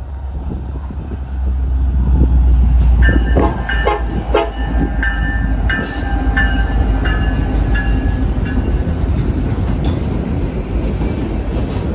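Diesel locomotive rumbling as it pulls a train out of the yard. Its air horn sounds a quick string of short toots from about three seconds in until past the middle.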